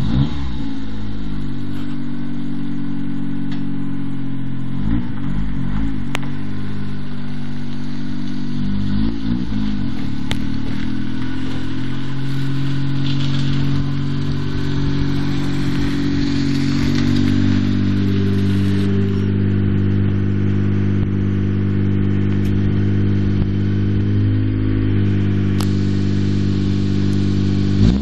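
Honda Today JA4's small three-cylinder engine running just after a start, its speed dropping in the first second. The pitch wavers a few times as the car is driven a short way, then the engine idles steadily, and right at the end it is revved up.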